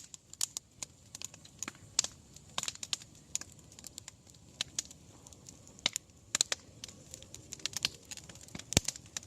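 Wood campfire crackling, with irregular sharp pops and snaps, sometimes several close together, over a faint low background.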